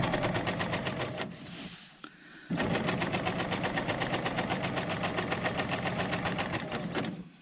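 Bernina L890 combination overlocker and cover stitch machine sewing a two-thread chain stitch with a rapid, even stitching rhythm. It slows and stops for about a second early on, starts again, and stops just before the end.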